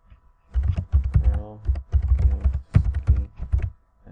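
Typing on a computer keyboard: a fast run of keystrokes that starts about half a second in and keeps going.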